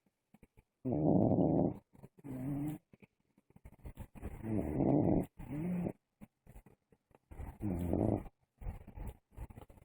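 Snoring in a steady breathing rhythm: three rounds about three seconds apart, each a long, loud snore followed by a shorter, quieter one.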